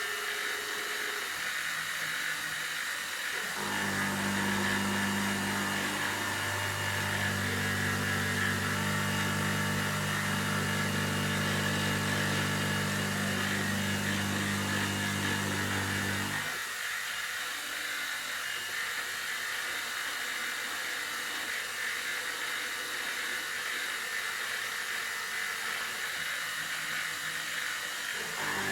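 Optimum BF16 milling machine under CNC control, spindle running while roughing aluminium with a steady hiss. A steady low hum comes in about three and a half seconds in, drops out at about sixteen seconds, and comes back briefly near the end.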